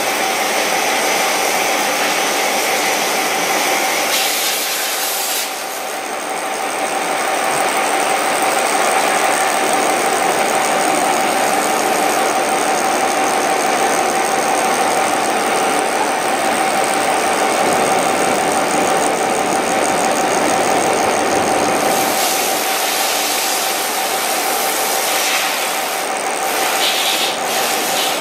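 Gear hobbing machine cutting teeth into cast (MC) nylon gear blanks: a steady machine hum with a constant tone under the scraping hiss of the hob shearing off plastic chips. The high hiss fades for a while about five seconds in and returns near the end.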